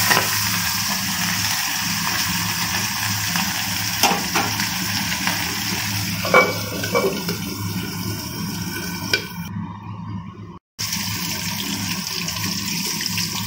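Pabda fish frying in hot oil in an iron kadai: a steady sizzle, with a few sharp metal clinks as the steel lid is lifted off about halfway through. The sound cuts out briefly a little past two-thirds through.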